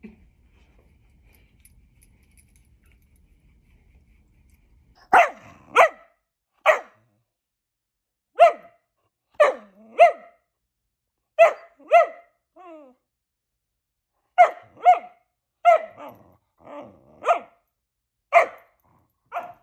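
Great Pyrenees puppy barking: short, sharp barks at about one a second, starting about five seconds in after a quiet stretch.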